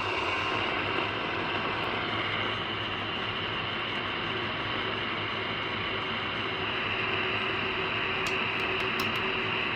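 Radio receiver hissing with static on a weak, barely received station, a steady noise with a faint steady tone beneath it and a few faint clicks near the end.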